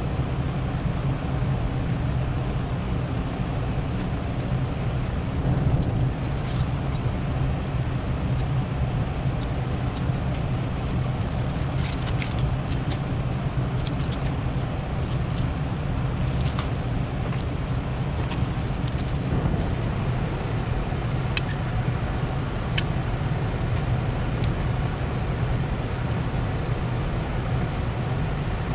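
A steady low machine hum, with scattered short crackles and ticks of masking tape being peeled off painted metal parts.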